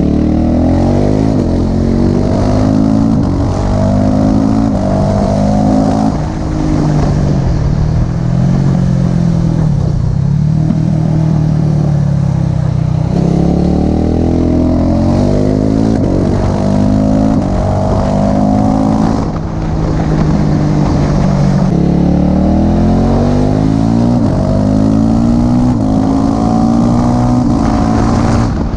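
KTM motorcycle engine, heard from the rider's position, accelerating through the gears several times: the revs climb and drop back at each upshift, with steadier cruising stretches in between. Wind rushes over the microphone throughout.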